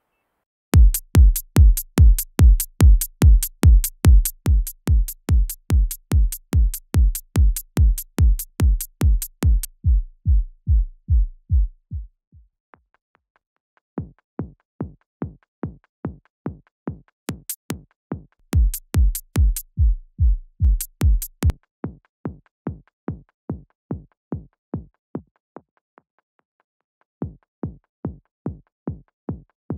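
Programmed electronic drum beat, a steady kick-heavy pattern with bright top-end hits, played back through a multiband saturator/compressor plugin. Partway through, the bright top drops out and only the low kick thuds remain. The beat then stops briefly and restarts quieter, with the bright full hits coming back for a few seconds before quieter low hits again.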